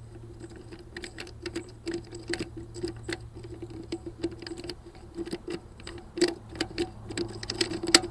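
Hand ratchet clicking in quick runs of small, irregular ticks as 3/8 bolts are run down, with a steady low hum underneath.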